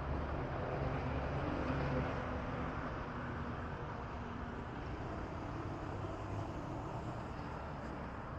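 Street ambience with a vehicle's engine hum and tyre noise, loudest in the first couple of seconds and easing off after.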